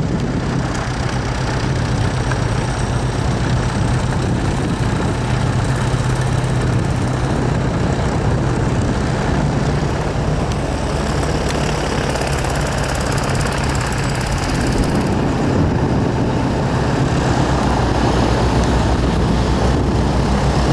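Motor vehicle engine running at low speed while driving, a steady low hum with road and wind noise over it.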